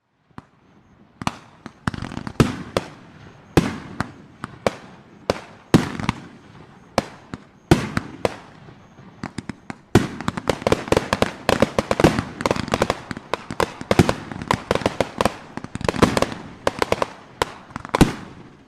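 Fireworks going off: a string of sharp, loud reports with crackle after them, turning into a dense, rapid crackling about halfway through.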